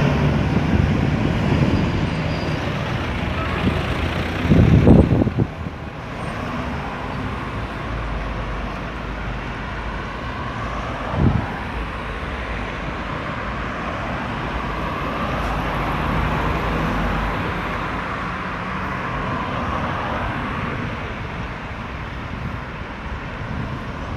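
Road traffic at a busy roundabout: cars, trucks and buses passing with a steady engine and tyre noise. There is a brief loud low rumble about five seconds in and a shorter one near eleven seconds.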